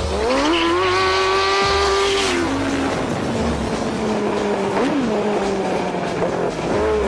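Yamaha R1 motorcycle-engined go-kart accelerating hard. The engine note climbs quickly to a high, steady pitch and holds it for about two seconds, then drops sharply and runs lower, with a few quick rev blips near the end.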